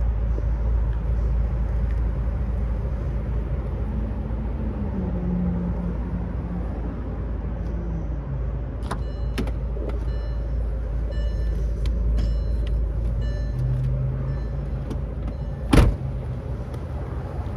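Steady low rumble of the Bentley Continental GTC's twin-turbo W12 idling, with a single loud, sharp clunk about two seconds before the end.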